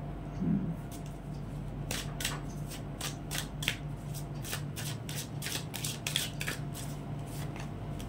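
A deck of tarot cards being shuffled by hand: a quick, irregular run of card flicks and snaps starting about two seconds in.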